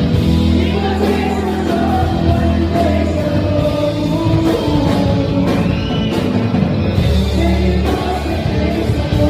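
Rock band playing a song, a singer's voice over guitar, bass and drums with a steady beat.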